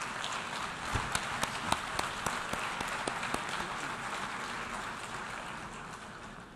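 Applause from a hall full of delegates, with a few sharp nearby claps standing out in the first half, fading away near the end.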